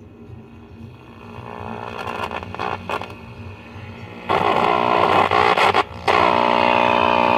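A Remler tube radio, just powered up after a capacitor replacement and not yet working properly, puts out a low steady hum and rising noise through its speaker. Then come two loud bursts of a harsh, distorted pitched sound, about four and six seconds in: a terrible sound.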